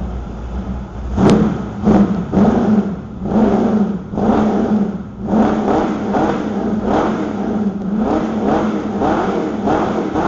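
Kit car engine revved through its newly welded exhaust in a string of quick throttle blips, pitch rising and falling with each one, over a steady idle. A brief sharp tick sounds about a second in.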